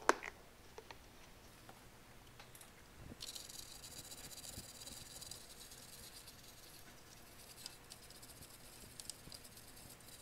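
Small brush scrubbing rubbing alcohol across an instrument cluster circuit board to clear flux residue: a soft, steady, scratchy rustle that starts about three seconds in. A sharp click right at the start is the loudest sound.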